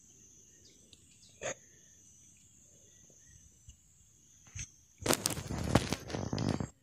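A faint, steady high insect drone with a couple of light knocks. About five seconds in, close handling noise takes over: a dense run of rapid crackling and scraping as the detonator wire is worked on the loose rock.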